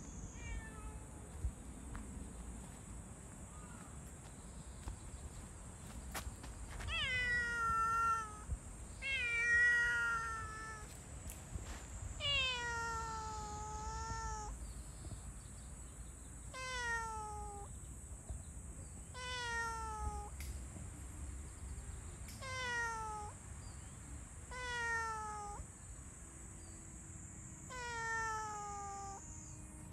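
Black cat meowing repeatedly, about eight drawn-out meows from about seven seconds in, each falling in pitch.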